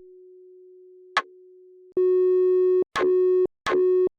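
Electronic test-tone-like beep, the product of heavy resonance suppression resampled in a DAW, which is called a TV sound. A faint steady tone with a single click about a second in; then, about two seconds in, it jumps loud and plays in on-off pieces, each restart starting with a click.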